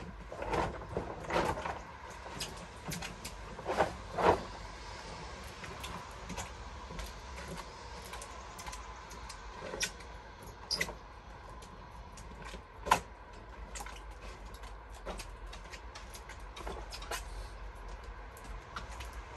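Scattered knocks, clicks and rustling of hands-on work, with a sharp knock about four seconds in and another, the loudest, about thirteen seconds in.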